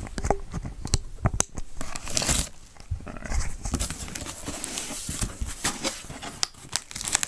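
Packing tape being torn off a cardboard box as it is opened, with rustling and scattered sharp clicks of cardboard and wrapping being handled.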